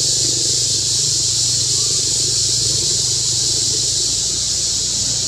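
Steady, high-pitched drone of insects in the forest trees, with faint voices of people talking in the background, mostly in the first second.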